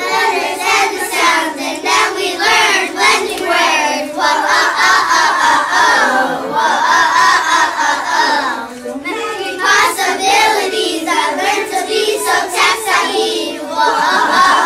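A group of kindergarten children singing a song together in unison, with rhythmic hand clapping in time with the song.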